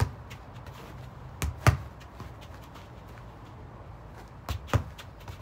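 A football being touched and pushed with the feet: sharp thuds that come in quick pairs, about a second and a half in and again about four and a half seconds in, over a low steady hum.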